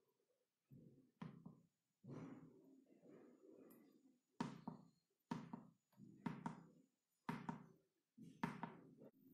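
Faint clicks and knocks of fingertip presses on the push-buttons of a homemade DCC controller keypad, coming in quick pairs about once a second.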